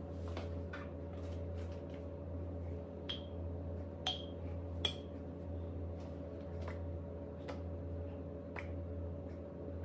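Three light clinks, each with a brief ring, about three, four and five seconds in, as the lid is lifted off a ceramic egg cooker and handled. Scattered soft clicks and a steady low hum run underneath.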